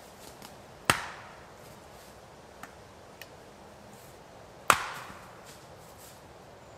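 An axe splitting firewood on a chopping block: two sharp strikes about four seconds apart, each with a short ringing tail, and two faint clicks between them.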